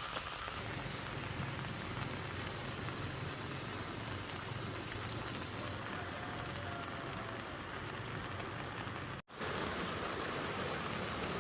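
Steady rain falling, a continuous hiss with a few faint drop ticks near the start. The sound cuts out for an instant about nine seconds in, then the rain noise resumes a little louder.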